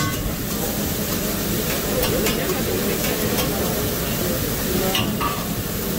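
Steak sizzling on a flat-top teppanyaki griddle, with a steady hiss and a few sharp clicks of a metal spatula and knife against the steel.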